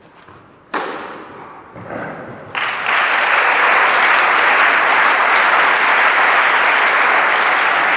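Spectators applauding a won point in a tennis hall. The applause starts about two and a half seconds in and holds steady. Before it there is a sharp impact about a second in.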